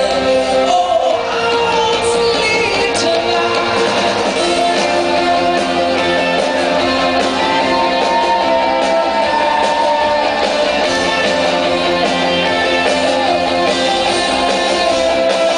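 Live rock band playing through a concert PA: electric guitars and drums with a singer, recorded from the audience in a large hall.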